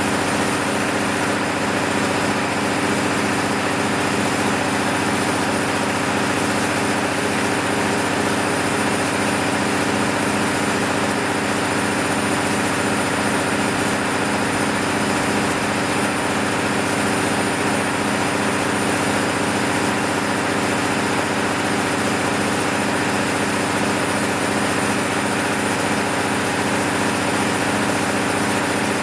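MEP-006A generator set's six-cylinder diesel engine running steadily at constant governed speed during a load test after a full rebuild, with an even, unchanging drone and regular firing pulse.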